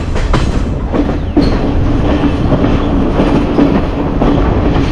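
Passenger train running, heard from inside the carriage: a steady rumble of wheels on the track with a few sharp clicks and a steady hum that comes in about a second in.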